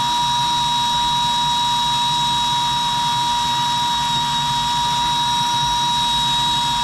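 DeWalt 20V XR cordless drill running flat out at one steady pitch, driving a step bit through the thin sheet-metal side wall of a pickup bed. The step bit is pretty dull.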